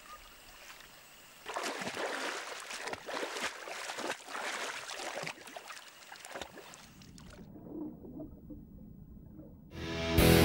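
A jaguar splashing and thrashing in shallow stream water: a rush of splashes and sloshing starts about a second and a half in and eases off after about four seconds. Near the end the sound turns muffled, and loud music comes in at the very end.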